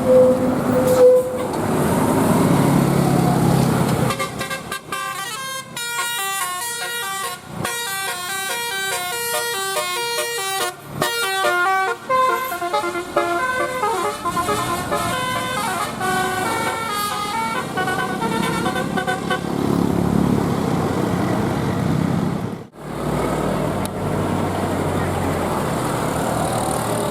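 Telolet multi-tone bus horn playing a quick stepping melody of several notes for about fifteen seconds, starting about four seconds in. A single steady horn tone sounds at the very start, and the rumble of the passing bus's engine follows the melody.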